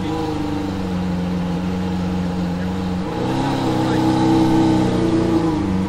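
Lamborghini Aventador Hamann Nervudo Roadster's V12 engine running at low revs as the car moves off slowly. About halfway through, the note steps up in pitch and grows louder, then settles back near the end.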